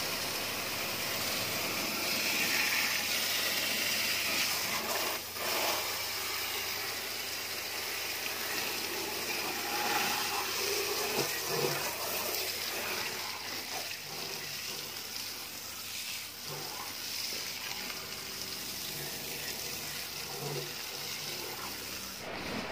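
Water from a garden hose spraying onto a car's alloy wheel and tyre, a steady hiss and splatter as the mud is rinsed off.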